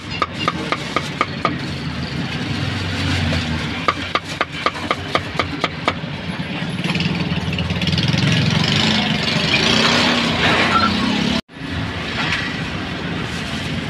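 A cleaver chopping meat on a wooden block, about three strokes a second for the first six seconds, over the steady hum of passing motorbikes and traffic. The traffic noise grows louder after the chopping stops.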